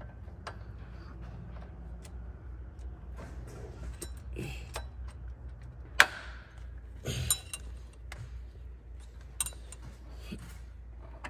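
Scattered metallic clicks and clinks of a cam phaser and its timing chain being worked by hand onto a Ford 3.5 EcoBoost camshaft, the sharpest click about six seconds in, over a faint low hum.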